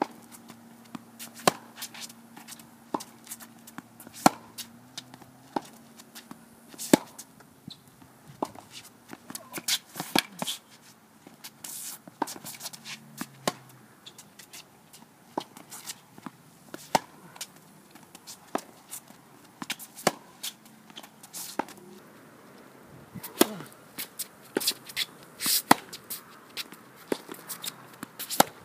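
Tennis balls struck by rackets and bouncing on a hard court during play: a run of sharp pops and knocks, often a second or so apart, coming closer together near the end.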